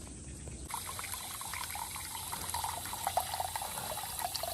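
Water running from a tap into a bowl, starting abruptly about a second in and running steadily.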